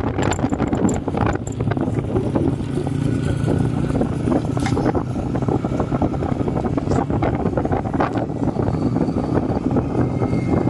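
Motorcycle riding at road speed: a steady engine hum under loud wind noise rushing and buffeting across the helmet-mounted microphone.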